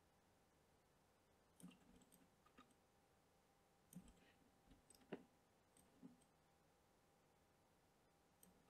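Near silence broken by five faint, scattered clicks of a computer mouse.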